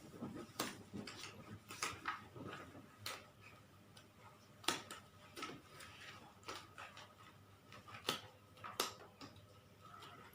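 Scattered light clicks and taps, a dozen or so at uneven intervals, over a faint steady high hum.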